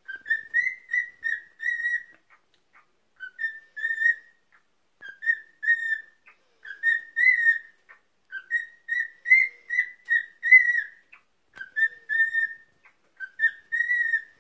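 Cockatiel singing: warbling whistled notes repeated in short phrases of three to five, with brief pauses between phrases.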